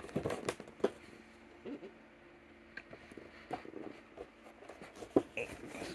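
Cardboard-and-plastic window box being handled: scattered light taps and knocks, with the sharpest knock about five seconds in.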